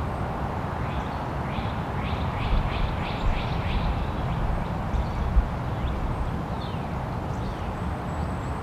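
Outdoor background with a steady low rumble, and a bird chirping a quick run of about eight short notes between about one and a half and four seconds in, then a few fainter chirps.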